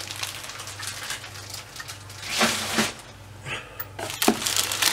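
Clear plastic bags of model-kit sprues crinkling and rustling as they are handled in a cardboard box. The crinkling is louder about two and a half seconds in, and there is a sharp click a little after four seconds.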